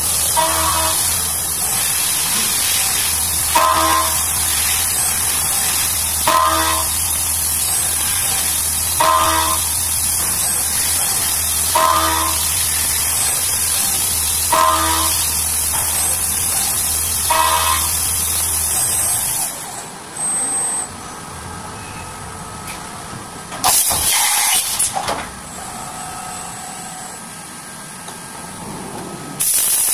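CNC vertical mill cutting aluminium under flood coolant: a steady hiss over a low hum, with a short ringing tone about every three seconds. About two-thirds of the way through, the cutting stops and it turns quieter, with a brief loud rush a few seconds later and loud hiss starting again right at the end.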